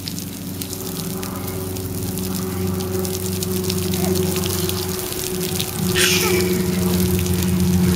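Water from a garden hose spraying and pattering down, many fine drops, over a steady low hum; a short hiss of spray about six seconds in.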